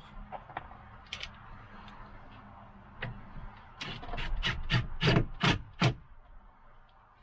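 A run of about seven sharp mechanical clicks, coming faster and louder over two seconds in the second half, after a few faint scattered clicks. They come from hand work on the truck's door during a mirror install.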